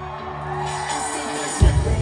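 Live band music in an arena: held bass notes, then heavy drum hits coming in about one and a half seconds in, with crowd noise from the audience.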